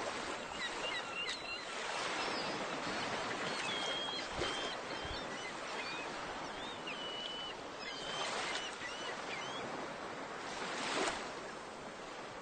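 Seaside ambience: a steady wash of surf with swells rising and falling, and scattered short high chirps through the first part.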